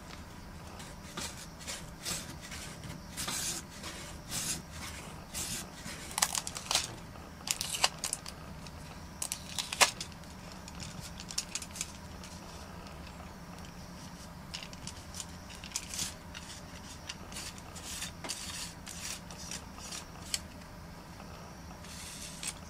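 Abrasive being rubbed over a carbon-fibre telescopic fishing rod's glued break, sanding the dried repair smooth: irregular short rasping strokes with a few sharp clicks, busiest in the first half.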